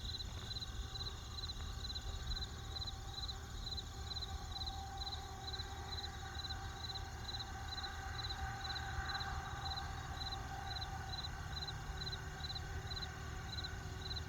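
Crickets chirping in a steady, even rhythm, a little over two high chirps a second, over a low steady rumble.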